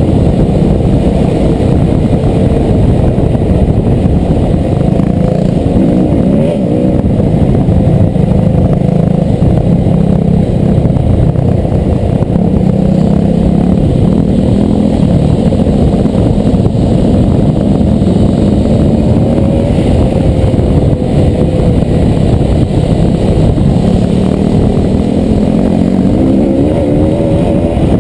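Dirt bike engine being ridden on a trail, close to a helmet-mounted microphone, its revs rising and falling continuously as the throttle changes, climbing noticeably about six seconds in and again near the end.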